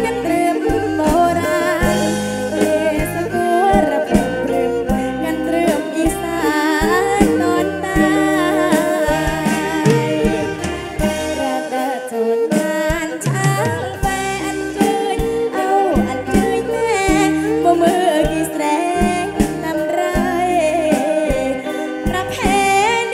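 Live kantrum band music: a woman singing lead into a microphone over electric guitar, keyboard and drum kit, with a steady beat.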